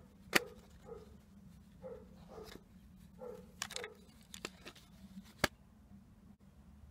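Plastic cassette tapes being handled in their case: sharp clicks and knocks as a cassette is lifted out and another set in, the loudest about half a second in and again about five and a half seconds in, with a few short creaks in between.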